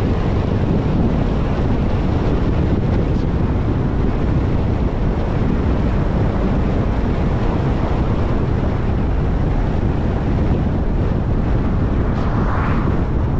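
Steady wind rush and road noise from a car driving, with wind buffeting the microphone. A brief hiss swells and fades near the end.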